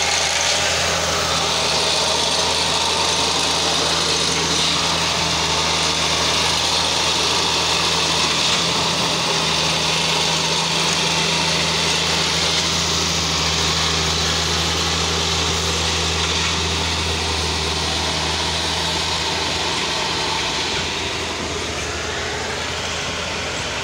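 Diesel engine of a Plasser & Theurer track tamping machine running steadily at work, a low even hum with a dense higher mechanical noise over it. The hum fades about 20 seconds in as the train pulls past.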